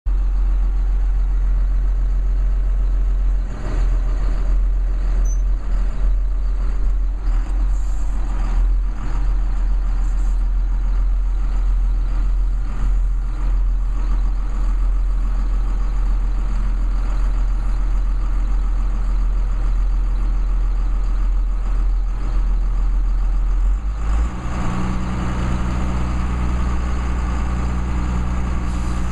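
John Deere 4955 tractor's six-cylinder turbo diesel engine running steadily, heard from inside the cab. About 24 seconds in its note shifts, with more high rough noise over the low hum.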